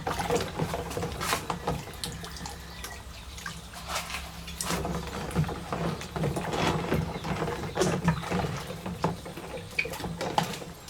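Wet cleaning of a small diecast model car: water dripping and scattered light clicks and taps of handling, over a low steady hum.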